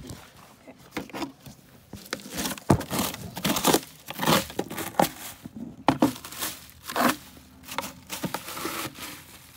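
Plastic scoop scraping and shovelling dry wood shavings in a wooden nesting box: a run of irregular crunchy rustles that gets busier about two seconds in.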